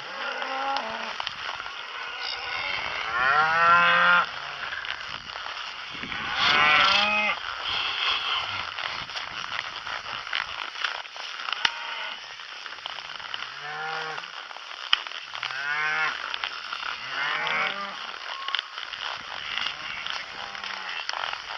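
Cattle mooing repeatedly, about six calls one after another, the loudest and longest a few seconds in. Two brief sharp clicks in the middle.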